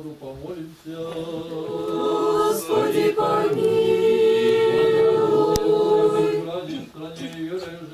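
A man's voice intoning on a single note, answered by a group of voices singing an Orthodox liturgical chant response that swells to a loud held chord in the middle and fades near the end.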